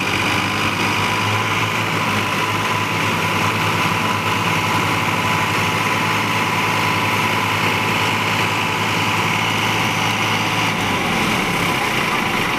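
Diesel engines of Farmtrac tractors running steadily at idle. The low engine note drops away about eleven seconds in.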